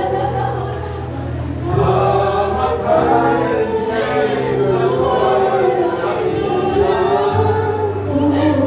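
Congregation singing a Tagalog worship song together over an instrumental accompaniment whose held bass notes change about seven seconds in.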